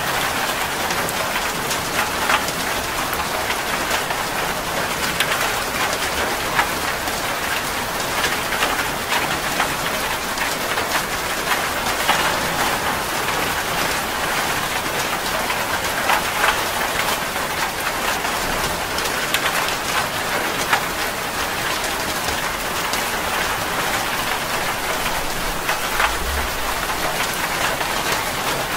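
Steady rain falling on a surface: a continuous dense hiss of drops with individual splatters ticking through it.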